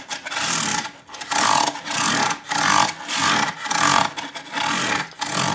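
320-grit sandpaper wrapped around a dowel, rubbed back and forth over ukulele frets in steady strokes about twice a second: a scratchy rasping that polishes the file scratches out of the freshly crowned frets.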